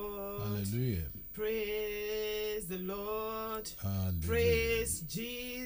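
A man's voice singing slow, long-held notes with gliding changes of pitch between them, no words made out.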